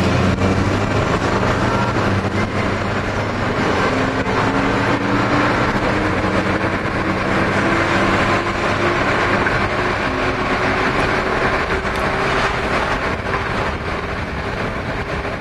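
Engine and road noise of vehicles under way, heard from a moving car, with one engine note climbing slowly in pitch.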